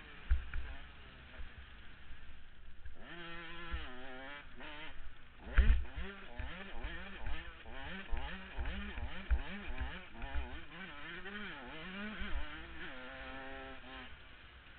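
KTM 105 XC two-stroke dirt bike engine racing, its revs rising and falling about once a second, with a steadier pitch near the start and near the end. Low thumps and buffeting come through over the engine, the loudest about five and a half seconds in.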